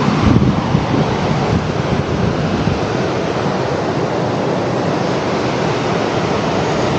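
Pacific Ocean surf breaking on the beach, a steady rush of wave noise, with wind gusting on the microphone in the first second or so.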